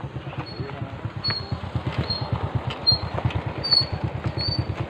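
Motorcycle engine running at low speed as the bike is ridden slowly, a fast even putter, with a few short high chirps over it.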